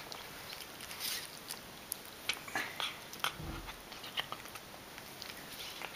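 A domestic cat eating tinned tuna from a bowl: irregular chewing and mouth clicks, with a dull low bump about three and a half seconds in.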